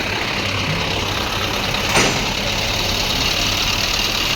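A machine's engine idling steadily with a low hum, and a single sharp click about two seconds in.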